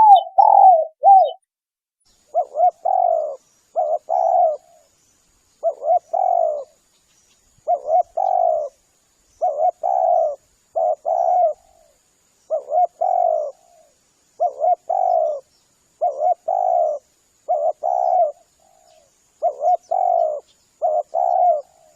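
Spotted dove (tekukur) cooing over and over: repeated coo phrases, each a short note followed by a longer rolling coo, coming every one to two seconds. This is the dove's advertising call, played as a lure call to draw in tekukur.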